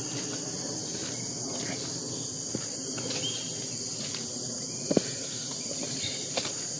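Steady high-pitched chorus of insects, with a few faint taps, the clearest about five seconds in.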